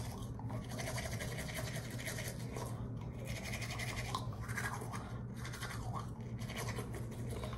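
Toothbrush scrubbing teeth: rapid, scratchy back-and-forth brushing strokes.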